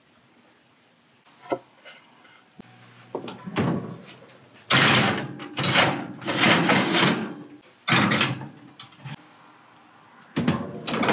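Oven door and wire oven rack being worked as a baking pan is slid in: clattering and scraping of metal in several loud bursts after a single knock.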